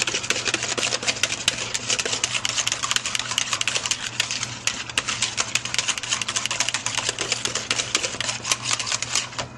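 Wire whisk beating a liquid egg, milk and sour cream mixture in a pot: rapid, steady clicking of the whisk wires against the pot's sides.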